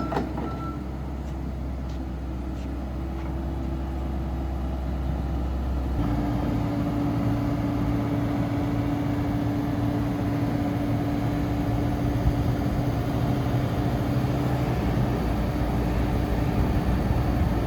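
Komatsu PC78US-8 hydraulic excavator's diesel engine running steadily. About six seconds in, its note changes and it grows louder, then holds there. A high beep carries over from before and stops within the first second.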